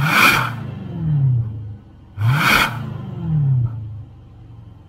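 Range Rover SVAutobiography engine free-revved twice through a Fi Exhaust valvetronic catback, about two seconds apart. Each rev shoots up sharply to a loud peak and then falls back toward idle.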